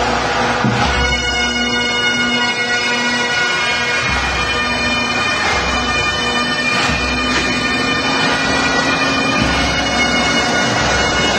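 Bagpipe music: a steady drone under a melody of held notes.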